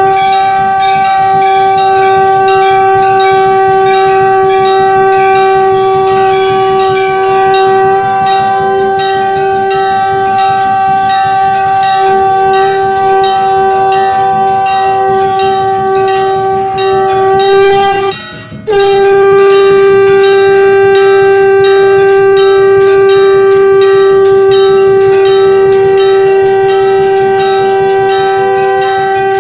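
Shankh (conch shell) blown in one long, steady note that breaks off briefly about two-thirds of the way through and then resumes at the same pitch. Temple bells ring rapidly and continuously underneath.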